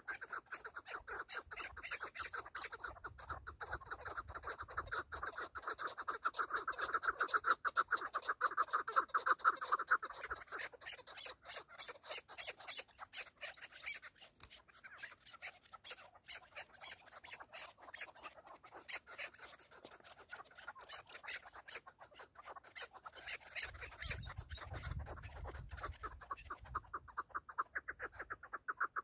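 Chukar partridges calling: a fast, continuous run of clucking chatter, loudest in the first ten seconds, weaker through the middle and picking up again near the end.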